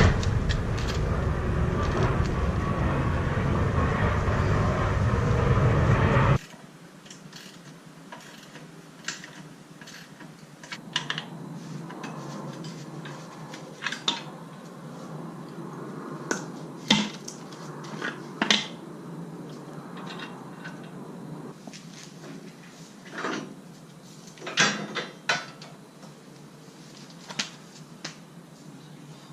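Metal tools and parts clinking and knocking: scattered sharp clanks over a quiet background. A loud steady sound with a deep low end fills about the first six seconds and cuts off suddenly.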